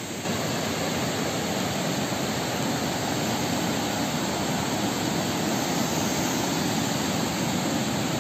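Rushing water of a shallow rocky river's rapids, a steady even rush that gets a little louder just after the start.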